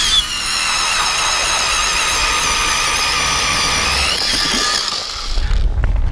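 StrikeMaster Lithium 24V battery-powered ice auger drilling into lake ice, its electric motor running with a steady high whine. About five seconds in, the whine fades and a low rumble takes over.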